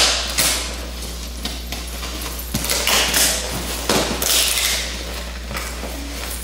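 Packing tape and cardboard torn by hand as a heavily taped shipping box is pulled open: several rasping tears, the longest about four seconds in, over a steady low hum.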